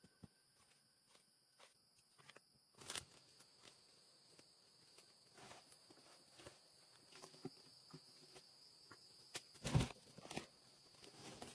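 Scattered light clicks, rustles and knocks, with one louder thump about ten seconds in, over a faint steady high-pitched insect drone that starts about three seconds in.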